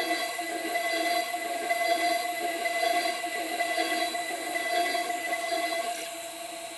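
CNC 6040 router's spindle whining steadily while its end mill cuts into an aluminium plate, with a rough cutting chatter under the whine. About six seconds in, the cutting noise eases as the tool moves between holes.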